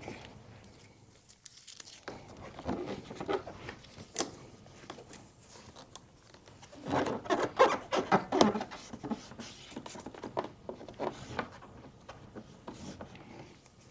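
Gloved hands wiping a motorcycle's painted plastic fairing with an alcohol pad: soft, irregular rubbing and rustling, with a louder patch of scraping about seven seconds in.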